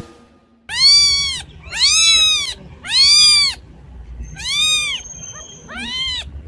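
A kitten mewing: five high cries, each rising then falling in pitch, the first three loud and about a second apart, the last two weaker.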